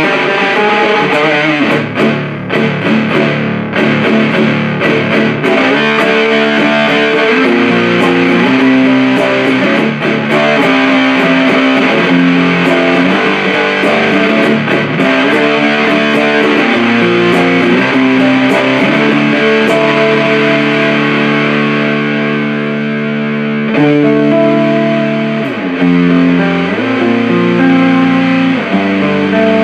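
Electric guitar played through a Supercoolpedals 77 Fuzz Blender, a Big Muff-style fuzz pedal, into an Orange Super Crush 100 amp: distorted, fuzzy riffs of sustained chords, with a slide in pitch about 26 seconds in.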